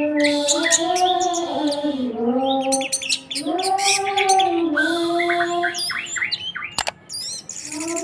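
Caged orange-headed thrush singing a run of quick, varied chirps and trills, over background music with a slow, held melody.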